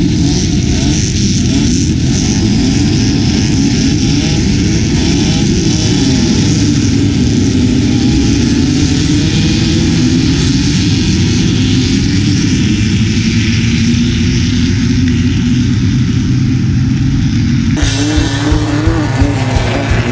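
Off-road race vehicle engines running hard and revving, pitch rising and falling with the throttle. The sound changes abruptly near the end.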